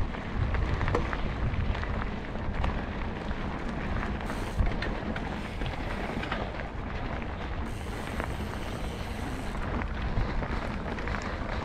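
Hardtail mountain bike being ridden on a dirt trail: a steady rush of wind over the microphone with tyre noise, and scattered clicks and rattles from the bike.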